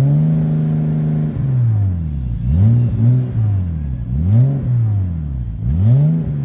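Car engine revved in neutral through its exhaust. One rev is held for about a second at the start and then drops away, followed by three quick blips, each rising and falling back toward idle.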